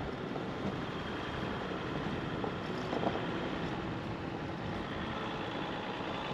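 Jeep driving along a dirt two-track: steady engine and tyre noise, with a few light knocks around the middle.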